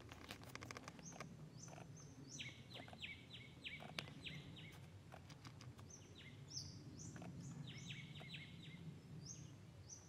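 Wild birds calling in bushland: two runs of quick, repeated downward-sliding notes, one a few seconds in and one near the end, with scattered higher single notes, over a steady low rumble. A patter of sharp clicks comes in the first couple of seconds, with one more at about four seconds.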